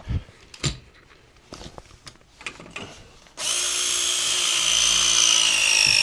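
Clicks and knocks as a pipe press tool's jaws are set on a copper press fitting. About three and a half seconds in, the tool's motor starts and runs with a steady high whine that drops slightly in pitch, crimping the fitting onto the pipe.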